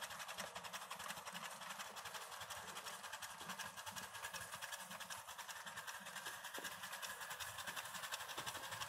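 Faint chuffing of a 1½-inch scale live steam locomotive pulling a train of riding cars: a fast, even beat of exhaust puffs over a steady hiss.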